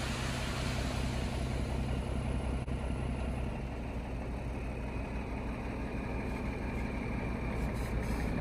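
Diesel engine of a semi-tractor running steadily while its raised end-dump trailer unloads crushed concrete, the load sliding out with a gravelly hiss that eases after about three seconds.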